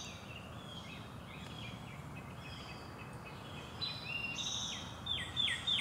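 Songbirds singing outdoors, with chirps and short whistled phrases over a steady low background rumble. Near the end one bird starts a quick series of bright down-slurred notes, about three a second.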